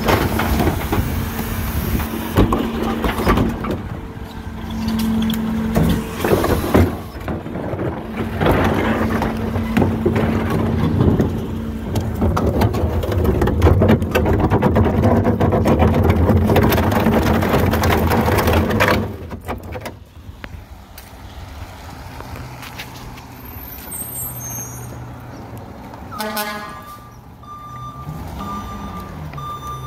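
Diesel garbage truck working: the engine runs hard under a dense mix of clanks and rattles for about nineteen seconds, then drops to a quieter steady run. Near the end a repeated beeping starts.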